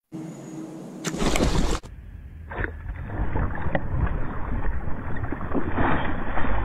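Water splashing and churning as a fish thrashes at the surface, getting louder and more continuous from about two seconds in, with a few sharp slaps.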